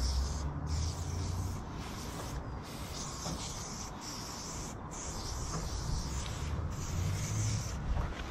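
Aerosol spray-paint can hissing as paint is sprayed onto rock, in several bursts of a second or two with brief stops between them.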